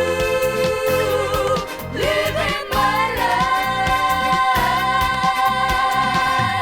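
Late-1970s Japanese pop song with a steady band beat, over which female voices hold two long notes, the second higher and starting about three seconds in.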